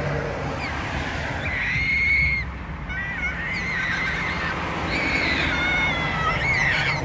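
Australian magpie calling: three drawn-out, wavering, warbling phrases, over a steady low rumble.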